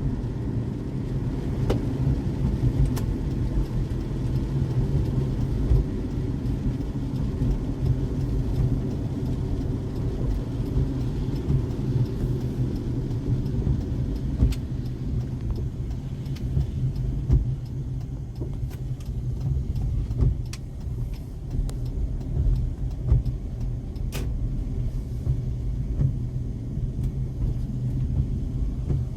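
Car driving in the rain, heard from inside: a steady low rumble of road and tyre noise, with occasional sharp ticks.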